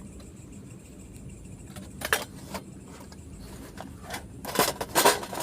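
Metal camping cookware clinking and rattling as it is handled to boil water: a few separate clinks about two seconds in, then a busier clatter in the last second.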